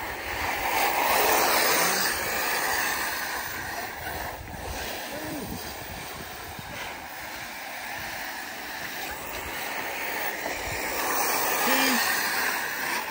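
Arrma Typhon 6S electric RC buggies racing on a loose dirt track: motors whirring and tyres scrabbling through the dirt. It grows louder as the cars pass close, about a second in and again near the end.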